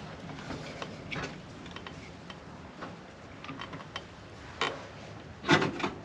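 Small metal clicks and knocks of parts and tools being handled inside a car door while a door lock actuator is fitted, with a sharper clack about four and a half seconds in and the loudest clunks near the end.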